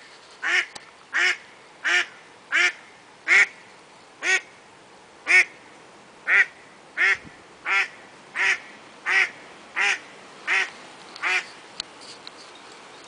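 A hen duck quacking in a long, regular series of about fifteen short quacks, a little under a second apart, stopping near the end. She is calling out to wild ducks that have just arrived on a nearby pond.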